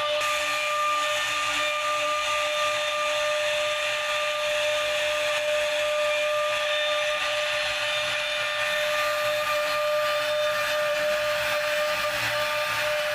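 CNC wood router running steadily: a constant high-pitched spindle whine over an even hiss of the bit cutting wood.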